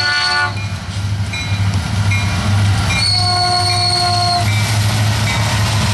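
Norfolk Southern diesel locomotives, an SD60I leading and an SD70M-2 behind, rumbling past close by. The lead unit's horn chord ends a blast about half a second in and sounds another from about three seconds to four and a half.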